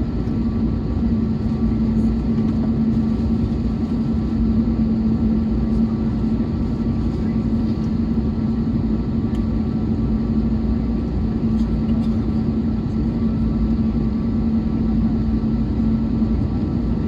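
Steady cabin noise inside an Airbus A321neo on the ground: a low rumble with a constant hum, from the engines idling and the cabin air systems running.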